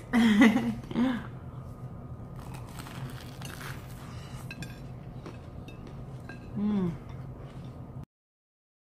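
People biting into and chewing toasted French bread pizza: faint crunching and clicking mouth sounds, with a short burst of voice at the start and a brief falling hum about seven seconds in. The sound cuts off abruptly about eight seconds in.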